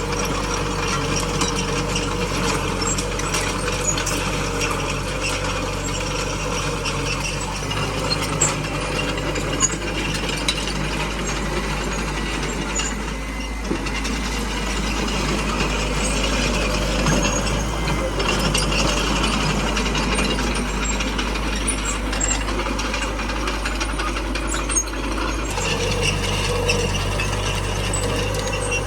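Small bulldozer at work: its diesel engine running steadily under the metallic clatter and clanking of its tracks. The engine note grows louder near the end.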